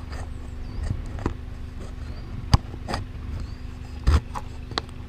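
Suzuki Jimny creeping along a rutted dirt track: the engine runs with a steady low hum while sharp knocks and rattles come every second or so as the vehicle jolts over bumps, the loudest about four seconds in.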